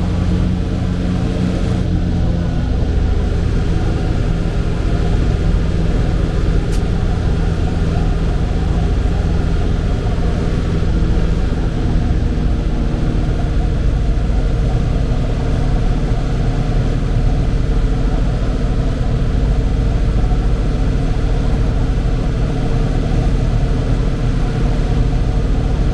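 Tractor engine running steadily at a constant speed under way.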